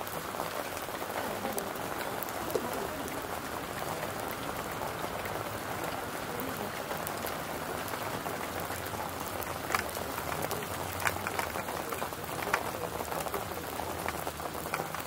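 Hail falling on an asphalt driveway: a steady patter of small hailstones hitting the ground, with a few sharper, louder ticks in the second half.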